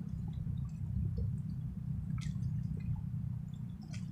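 Steady low rumble of outdoor background noise with scattered faint ticks, and two sharper clicks, one about two seconds in and one near the end.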